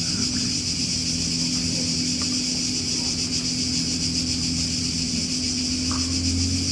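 Cicadas singing, a steady, loud, high-pitched buzz that carries on without a break.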